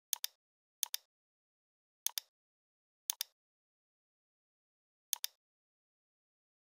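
Computer mouse clicking five times, each click a sharp double tick of the button going down and coming up, at uneven intervals with a longer gap before the last.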